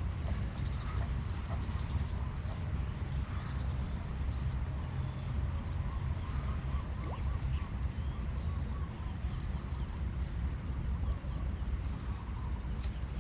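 Outdoor pond-side ambience: a steady low rumble throughout, with faint bird calls scattered above it.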